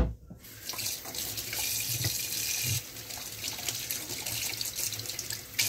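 Kitchen tap running into the sink as hands are washed under the stream.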